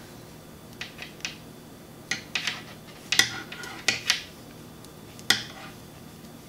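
Wooden knitting needles clicking and tapping against each other as stitches are knitted, in an irregular run of light clicks.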